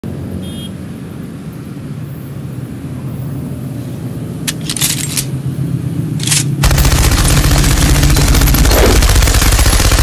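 Diesel locomotive hauling a tank-car train approaching, a low steady rumble growing louder. A few sharp clicks follow, then rapid continuous machine-gun fire, a dubbed sound effect, breaks in and becomes the loudest sound.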